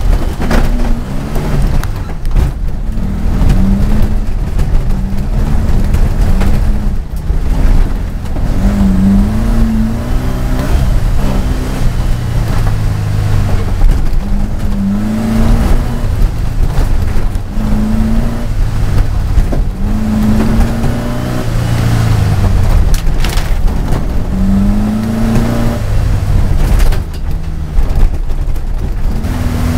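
Turbocharged Volkswagen Baja Bug's engine, heard from inside the car, revving up and dropping back again and again as it is driven hard over rough ground.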